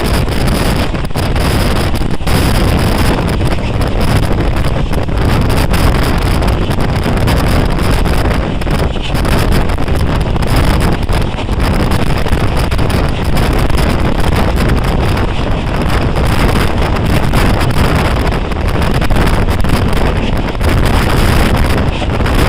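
Passenger train running at speed, heard as a loud, steady rush of wind buffeting the microphone over the rumble of the train on the track.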